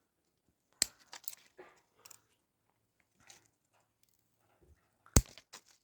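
Light handling noises from working on a potted plant: two sharp clicks, one about a second in and a louder one near the end, with soft rustles and small ticks between.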